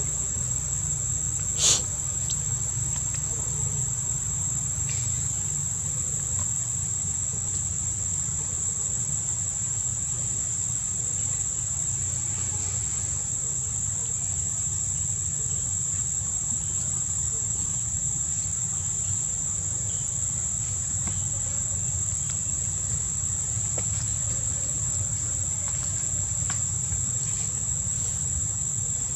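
Steady, high-pitched drone of an insect chorus, with a low rumble underneath and one sharp click about two seconds in.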